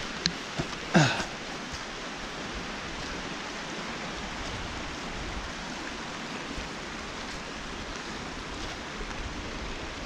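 Steady rush of heavy rain and a running forest stream. A few knocks early on and one short, loud sound with a falling pitch about a second in.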